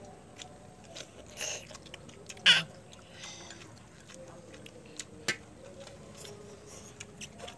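Eating at a table: chopsticks clicking against porcelain plates and bowls, and instant noodles being slurped and chewed, with one louder noisy burst about two and a half seconds in.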